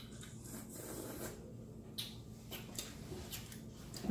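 Faint chewing and lip-smacking from people eating, with several brief soft smacks or clicks.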